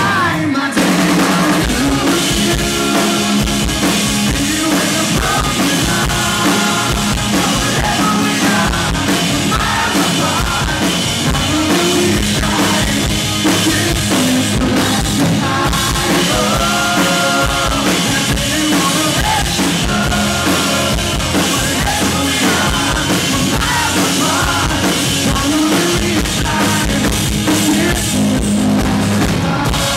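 Live rock band: a male lead vocal over electric guitars, bass guitar and a drum kit, with the singing coming in phrases over a steady beat.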